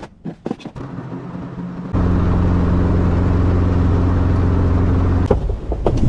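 Scattered clicks and handling knocks, then, about two seconds in, a sudden steady drone with a low hum: the Robinson R22 Beta II helicopter's four-cylinder Lycoming piston engine running, heard from the cockpit. The drone breaks off into sharp knocks and clatter near the end.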